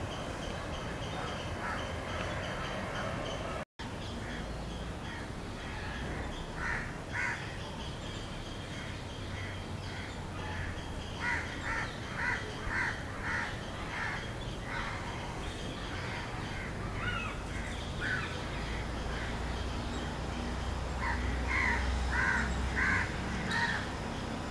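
Crows cawing in short series of harsh calls, a run of about six in the middle and another of four or five near the end, over steady outdoor background noise.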